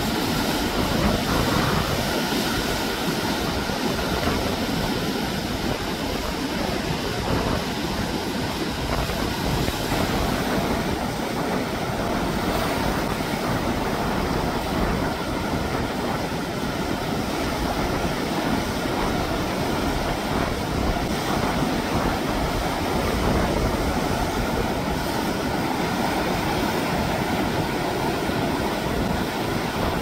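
Heavy typhoon-driven surf breaking over and around rocks, a steady, unbroken rush of churning water and foam.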